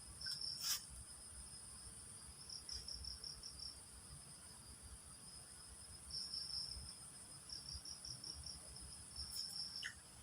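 Insects calling: a steady, very high-pitched drone with repeated bursts of rapid pulsed chirping over it. There is one sharp click less than a second in.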